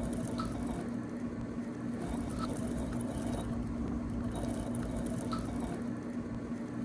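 Soft, continuous pattering and squishing of small squishy balls being handled and dropped into a jar, with a few faint ticks and a steady low hum underneath.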